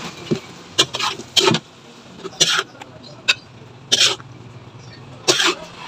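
Metal spatula scraping and knocking against a metal wok while stirring sautéed cucumber slices, about six short scrapes at uneven intervals.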